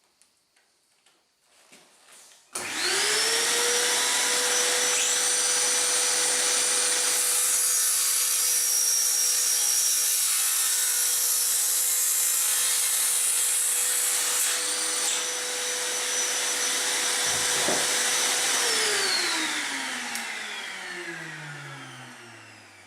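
Parkside PHKSA 20-LI A2 20 V cordless circular saw, hooked up to a vacuum for dust extraction, starts sharply about two and a half seconds in. It runs at a steady pitch for about sixteen seconds through a 45-degree bevel cut in wood, then winds down with a falling pitch near the end.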